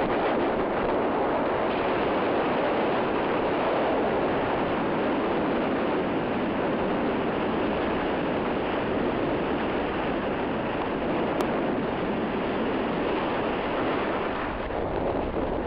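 Steady rushing of wind over the camera microphone as a skier runs downhill, blended with the hiss of skis sliding on snow.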